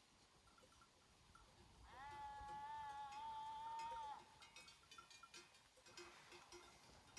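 A sheep bleats once, a long, steady call of about two seconds. After it, small bells worn by the flock clink faintly and irregularly.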